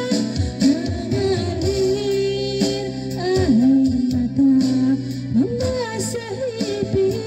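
A woman singing karaoke into a handheld microphone over a backing track, holding long notes that slide between pitches.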